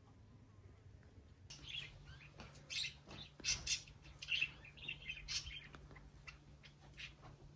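Small birds chirping in short, scattered calls, over the soft squelch of hands kneading minced lamb and grated onion in a glass bowl. A low steady hum comes in about one and a half seconds in.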